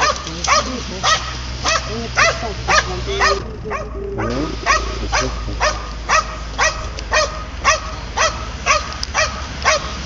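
A dog barking repeatedly in a steady rhythm of about two barks a second, with a short break of about a second partway through.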